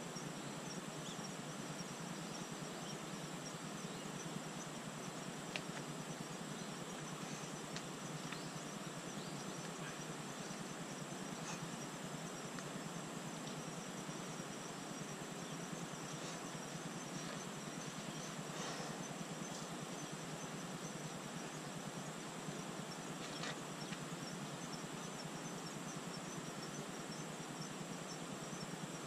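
Steady outdoor background noise with a continuous high-pitched, faintly pulsing trill, and a few faint ticks or taps scattered through it.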